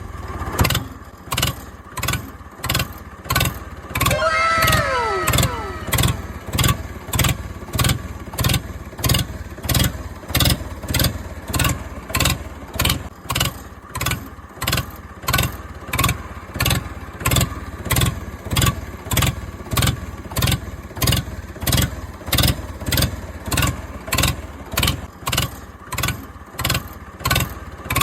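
A rhythmic engine-like sound, pulsing regularly about three times every two seconds, with a brief falling whistle-like glide around four to six seconds in.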